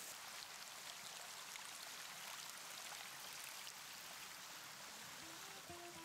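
Steady hiss of water from a waterfall pouring down sculpted rock into a pool. Plucked acoustic guitar notes come in near the end.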